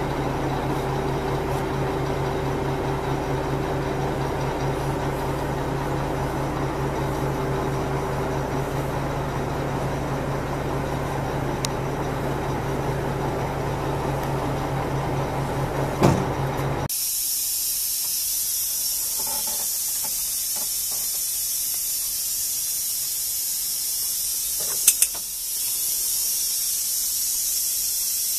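Diesel engine of a 1998 Mack RD688S roll-off truck running steadily while the hydraulic hoist lowers the rails, with a steady tone over it that fades out about a third of the way through and a knock about halfway. The engine sound then cuts off abruptly, leaving a steady high hiss with a couple of sharp clicks near the end.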